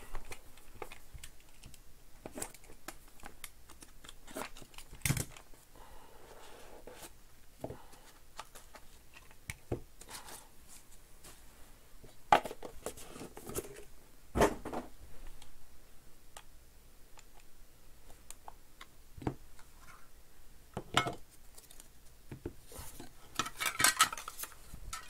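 Hands unpacking a trading-card hobby box: scattered clicks, taps and knocks of the cardboard box, its packing and a clear plastic card case against a tabletop, with light rustling and a few louder knocks. Near the end the packaging crinkles more busily.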